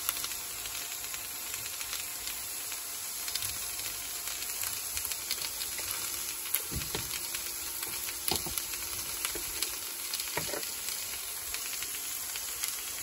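Chopped vegetables sizzling steadily in oil in a Ridgemonkey pan, with a few small clicks from a teaspoon and spice jars.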